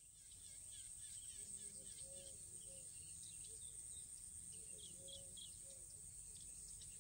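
Faint outdoor ambience of birds calling: many short high chirps, and a lower curved call that comes twice, about three seconds apart. A steady high hiss runs underneath.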